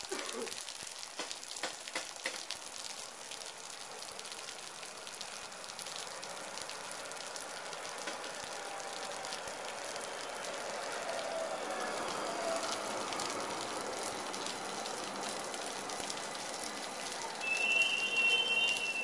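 Metro Gold Line light-rail train arriving through steady rain, its running and wheel noise growing as it draws into the platform, with a loud high-pitched tone in the last second and a half as it comes to a stop.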